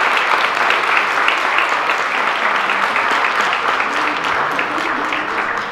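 Audience applauding: a dense, continuous patter of many hands clapping, gradually dying down near the end.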